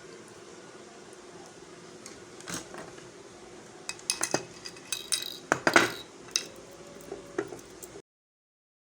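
Small metal hard-drive parts and tools clinking and knocking against each other during disassembly: a few sharp clinks, then a quick cluster of them in the middle, over a faint steady hum. The sound cuts off abruptly near the end.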